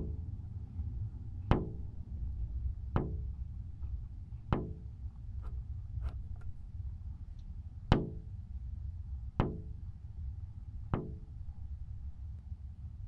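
A percussive knock with a short pitched ring, repeating roughly every second and a half, over a steady low rumble.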